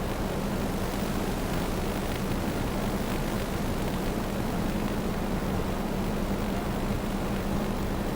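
DJI Phantom 2 quadcopter's motors and propellers running in flight: a steady hum with a constant rushing noise of air.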